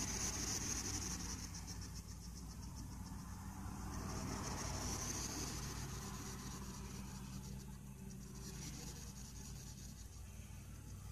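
Faint scratching and rubbing of a cat's paw against a rolled-up hedgehog's spines and a terry-cloth towel, over a steady low hum.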